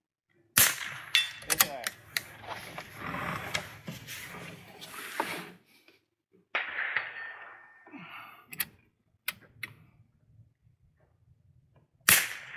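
Rimfire rifle shots, one sharp crack about half a second in and another near the end, with mechanical clicks and low voices between them.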